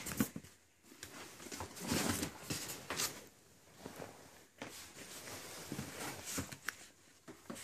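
Cardboard shoe boxes and packaging being handled: irregular rustling, scraping and light knocks.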